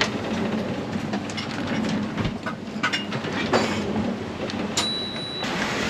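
Sailboat working hard in a rough, confused sea: continuous rushing water and hull noise with many small knocks, rattles and creaks from gear aboard. A short high beep sounds near the end.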